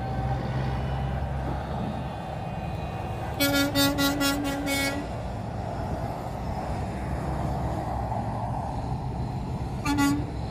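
Semi-truck tractors driving past, engines and tyres running steadily. About three and a half seconds in, a truck horn sounds in a quick series of about six short toots, and one more short toot comes near the end.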